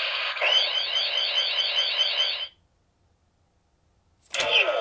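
CSM Decadriver toy transformation belt playing its electronic henshin sound effect for the KamenRide 2 card, a rapid, repeating warbling tone that cuts off suddenly about two and a half seconds in. After a short silence, a new electronic sound from the belt starts near the end.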